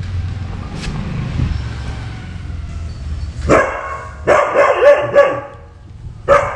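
A pet dog barking at its own reflection in a large mirror: one bark, then a quick run of about four barks, then another near the end, over a low rumble.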